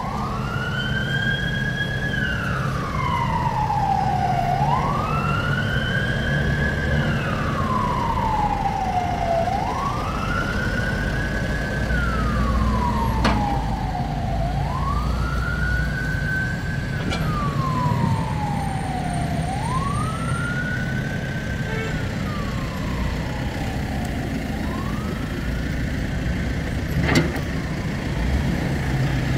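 Emergency-vehicle siren wailing in slow rising-and-falling cycles, about one every five seconds, growing fainter toward the end, over the steady running of a backhoe loader's diesel engine. A sharp knock comes about halfway through and a louder one near the end.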